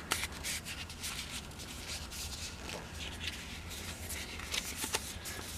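Sheets of cardstock being handled and stacked together in the hands, rustling and rubbing with many small scrapes and ticks.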